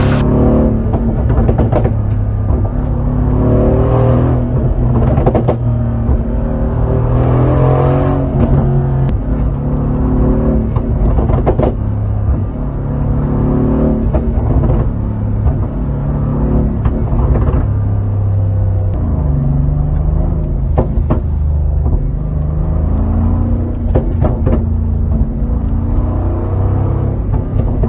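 Mercedes-Benz G500 4x4² twin-turbo V8 exhaust on a pop-and-crackle ECU tune, its revs rising and falling again and again, with sharp pops breaking out through the run.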